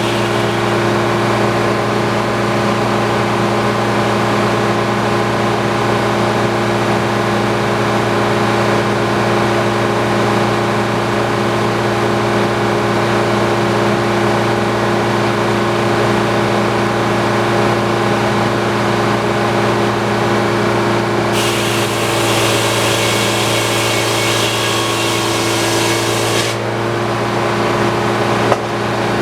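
Antique circular sawmill running with a steady mechanical hum. For about five seconds near the end a loud, high hissing joins in as the saw blade cuts through the log. A short knock comes just after.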